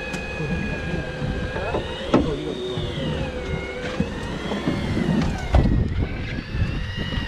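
A motor on a fishing boat whining: a few steady high tones that rise and fall slowly in pitch for a couple of seconds in the middle, over a low rumble. There is a sharp knock about two seconds in.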